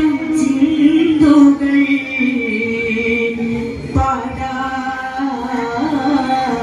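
A group of boys singing a Vattappattu, a Mappila wedding song from Kerala, unaccompanied, in long held notes that slide from pitch to pitch.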